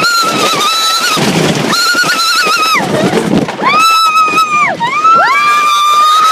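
Riders on a roller coaster screaming: a run of long, high, held screams, several overlapping, each about a second long and tailing off downward, over the rumble of the ride.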